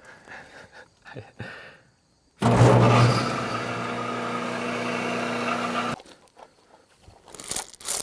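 American Rotary rotary phase converter switched on: its idler motor starts up suddenly and loudly, then runs with a steady electric hum and whir, making three-phase power for the sawmill. The sound cuts off suddenly about six seconds in.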